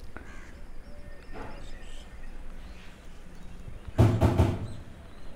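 Open-air background with faint, high bird chirps, then a brief loud call in three quick pulses about four seconds in.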